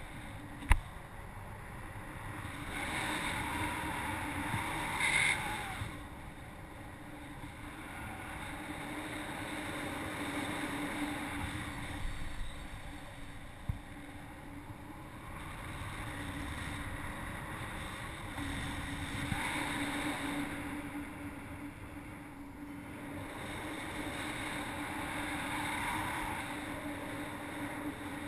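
Airflow rushing over the action camera's microphone during paraglider flight, swelling and easing in several gusts, with a faint steady hum underneath and one sharp click about a second in.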